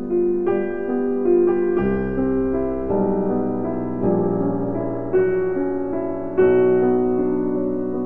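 Slow piano music, with held chords and notes changing about once a second.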